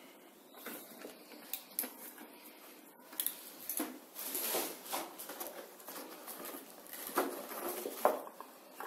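Unpacking noises: rustling and light knocks as items are lifted out of a cardboard box with a molded pulp tray, with a couple of sharper knocks near the end.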